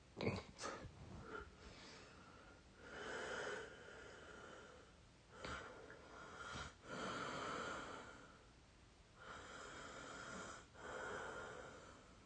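A sleeping person snoring and breathing heavily: slow, noisy breaths every few seconds, with a few short, sharp snorts near the start and in the middle.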